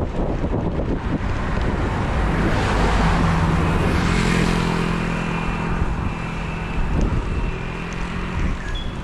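Wind rushing over a bike-mounted camera's microphone while riding on a road. A car passes in the oncoming lane, the noise swelling and easing about three to five seconds in, and a steady low engine hum runs from about three seconds in until near the end.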